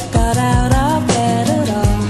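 Background music: a song with a sung melody over a beat.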